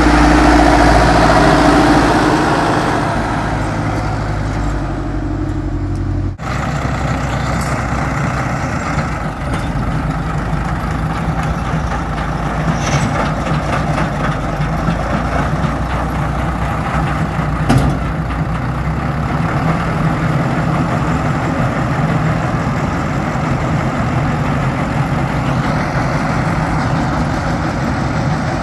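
Ursus 1014 tractor's diesel engine running steadily while it pulls a Krone round baler at work in hay. It is loudest in the first few seconds as the tractor passes close, and there is a single sharp clack about two-thirds of the way through.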